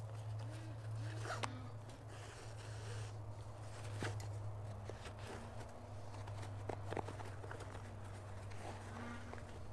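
Bootlaces being loosened and pulled through the eyelets of a leather work boot: scattered light clicks, scrapes and rustles, over a low steady hum.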